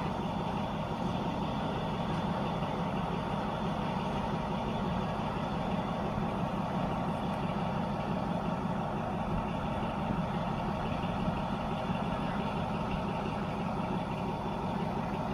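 Diesel locomotive of a standing passenger train idling, a steady unchanging engine drone.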